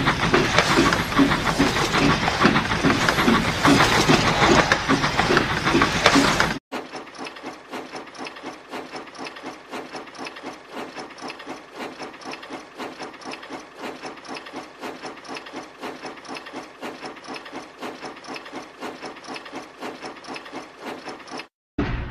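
Steam locomotive sound effects: loud chuffing over a hiss, about two or three puffs a second, cuts off about six and a half seconds in. A quieter, faster, even run of chuffs follows, and another loud effect starts just before the end.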